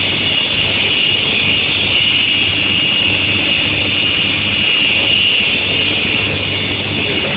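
Steady, loud running noise of an electric heat-treatment furnace line for steel sheet, a continuous hum with a high whine on top.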